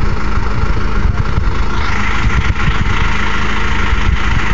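John Deere utility tractor's diesel engine idling steadily.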